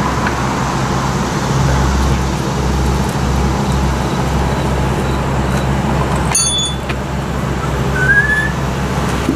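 Steady low rumble of a motor vehicle engine running and road traffic. About two-thirds through there is a short, high ringing clink, and near the end a brief rising chirp like a bird's.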